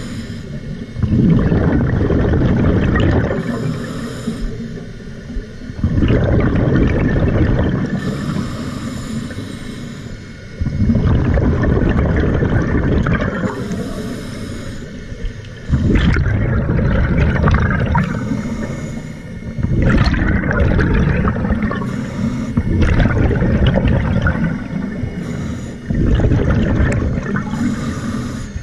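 Scuba diver breathing through a regulator underwater: a short hissing inhale, then a sudden, long rush of exhaust bubbles, about six breaths, roughly every four to five seconds.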